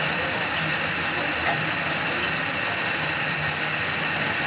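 Cars of the water-balanced Lynton & Lynmouth cliff railway funicular running on their rails: steady mechanical running noise with a low hum that comes and goes.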